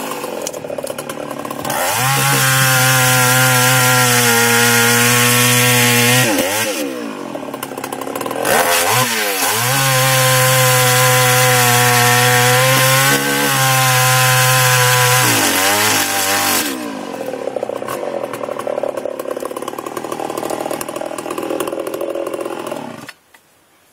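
Old two-stroke chainsaw revved up and held at high speed twice, cutting wood, dropping back to idle between, then idling and shut off suddenly near the end. It is an older saw that runs at lower RPM than newer ones but with a lot of torque.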